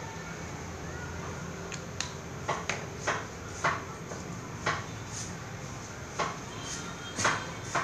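Irregular light taps and clicks of felt-tip markers being handled, put down and tapped against a paper notebook on a table, about nine in all, over a steady low hum.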